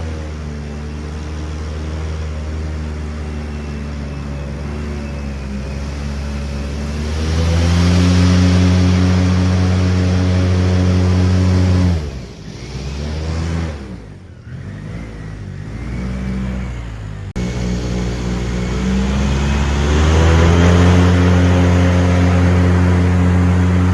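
Airboat engine and propeller running. The throttle opens up about a third of the way in, then drops back sharply around halfway, the pitch sagging and wavering, before the engine picks up again and revs back up near the end.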